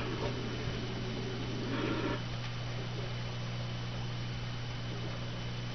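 A steady low electrical hum under an even hiss, with no speech or music.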